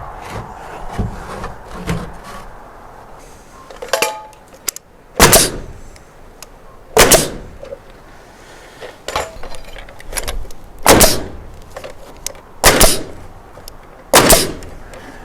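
Pneumatic nail gun firing nails into wooden boards: five loud, sharp shots spaced roughly two seconds apart, starting about five seconds in, with lighter knocks in between.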